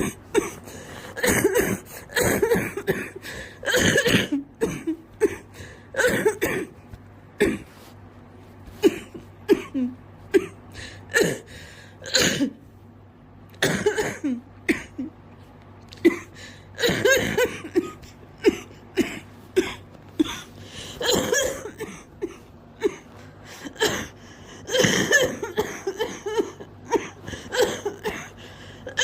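Person coughing in repeated fits: many short coughs, some running together in quick strings of several, with pauses of a second or two between fits.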